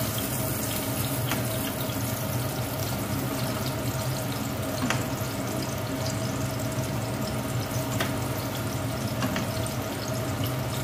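Metal spoon stirring broth in a cooking pot, clinking against the pot four times, over a steady kitchen hiss and hum.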